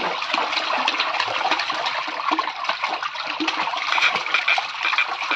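Bathwater splashing in a plastic tub as a toddler slaps and churns it with his hands: a dense run of irregular small splashes.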